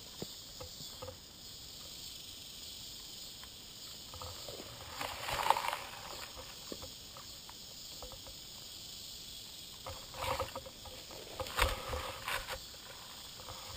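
Croquet mallet and balls being handled in the grass: a brushing rustle about five seconds in, then a few light knocks near the end, over a steady high insect buzz.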